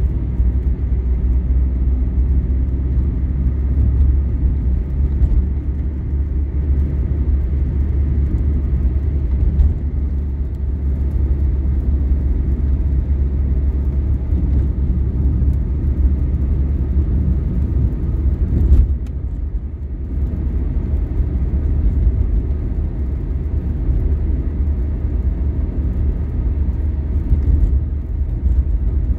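Steady low rumble of a car driving at highway speed, heard from inside the cabin: engine and tyre road noise, with a brief drop in level about two-thirds of the way through.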